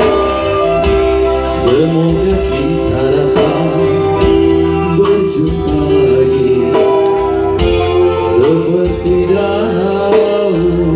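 Music from an Indonesian love song: an instrumental passage over a steady accompaniment, with a wavering, gliding lead melody and no words sung.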